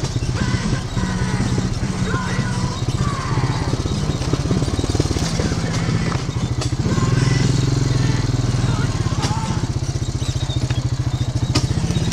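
ATV engine running as it drives along a dirt trail. The engine gets louder about seven seconds in.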